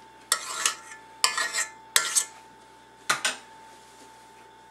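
Metal fork clinking and scraping against the rim of a stainless steel mixing bowl, knocking off mashed sweet potato: about five sharp strikes and short scrapes in the first three seconds or so.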